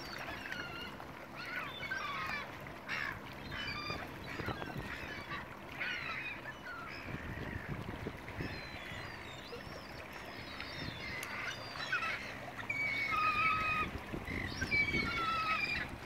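A flock of gulls calling continually, many short squawks overlapping, as they dive on a school of fish. A few longer, steadier calls stand out in the last few seconds.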